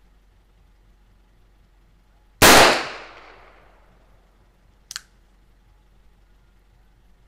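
A single shot from a Nagant revolver firing an old WW2 Soviet 7.62 Nagant cartridge: one sharp report whose echo dies away over about a second and a half. About two and a half seconds later comes a short, faint click.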